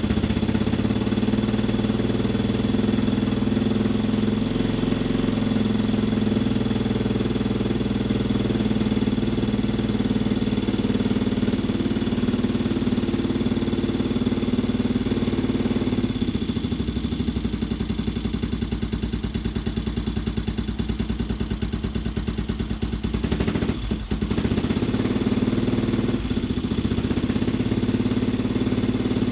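Suzuki DR650 single-cylinder four-stroke engine running at idle just after a rebuild, with valve clicking from too much valve clearance, the valves having been adjusted on the wrong stroke. Its note changes about halfway through, with a couple of brief dips near the end.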